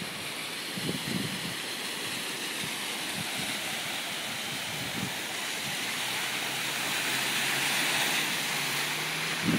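Storm floodwater rushing down a street in a steady hiss that grows a little louder after about six seconds. A faint low hum joins it at about the same point.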